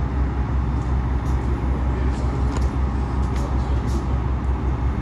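Steady low vehicle rumble with a few faint ticks over it.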